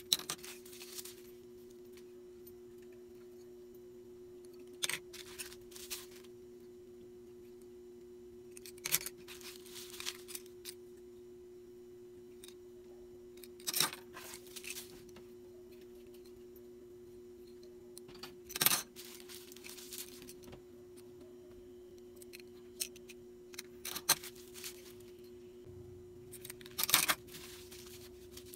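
Packing materials being handled: short bursts of rustling and clicks every four or five seconds, the loudest at the start, about two-thirds through and near the end. A steady low two-note hum runs underneath.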